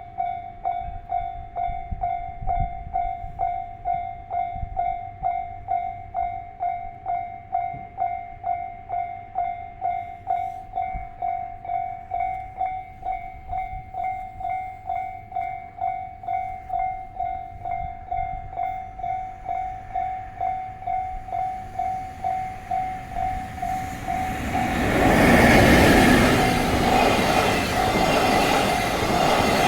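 Japanese railway crossing alarm ringing in an even, repeated electronic ding. About 25 seconds in, a train passes at speed, and a loud rushing rumble of wheels on rails drowns out the alarm.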